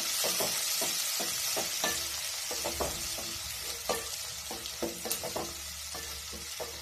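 Sliced carrots and green peppers sizzling in hot oil in a metal pot while a wooden spoon stirs them, with a steady hiss and irregular knocks and scrapes of the spoon against the pot, several a second.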